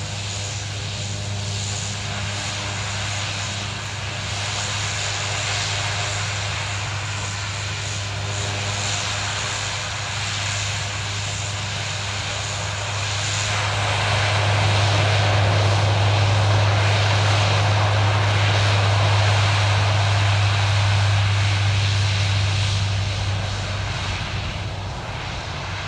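Alenia C-27J Spartan's twin turboprops with six-bladed propellers running with a steady low propeller drone. About halfway through they power up for the takeoff roll, the sound growing louder and fuller, then fading somewhat near the end as the aircraft moves off.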